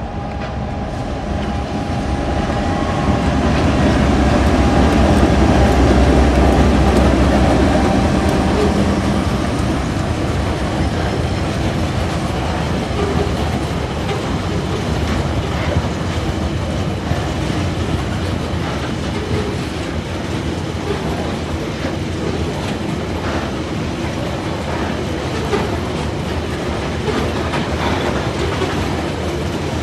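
Tasrail diesel locomotives 2051 and 2054 pass at the head of a coal train, their engines loudest around five to eight seconds in. Then a string of coal hopper wagons rolls by, with a steady rumble and repeated clickety-clack of wheels over the rail joints.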